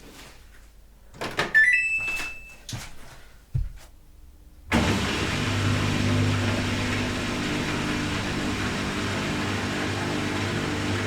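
Samsung Eco Bubble washing machine: a few clicks and a short rising beep from the control panel, then about five seconds in the machine starts with a sudden steady hum and rushing noise that holds on through its spin cycle.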